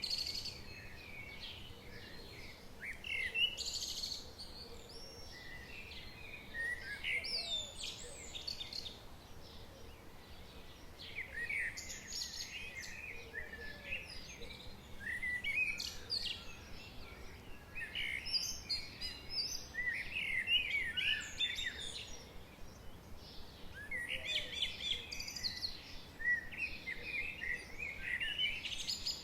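Songbirds singing: bouts of quick chirps and rising and falling whistled phrases come every few seconds, over a faint steady background hiss.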